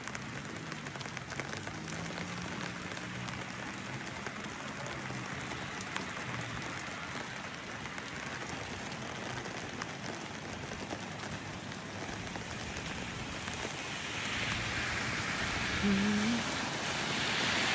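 Steady rain falling, a constant hiss with scattered drop ticks, growing louder over the last few seconds.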